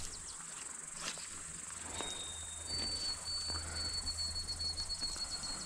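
Insects trilling steadily and high-pitched. A thin, high, steady whistle-like note comes in about halfway and holds to the end.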